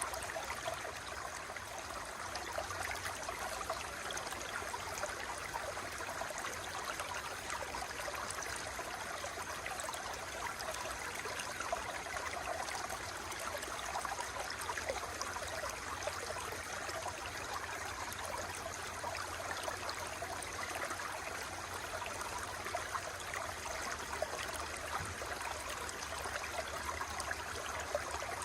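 Running water, a steady even rush that never pauses or changes.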